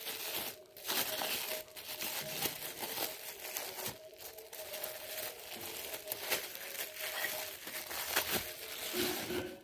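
Plastic bubble wrap crinkling and crackling as hands handle it and peel it off a stainless steel mug, with many small irregular crackles.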